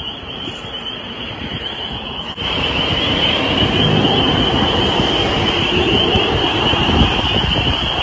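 A dense chorus of frogs calling together as one steady high-pitched trill. Wind noise on the microphone rumbles underneath and grows louder about two and a half seconds in.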